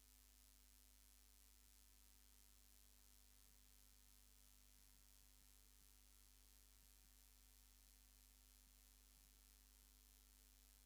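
Near silence: a faint, steady electrical hum with light hiss. No sound from the trains is heard.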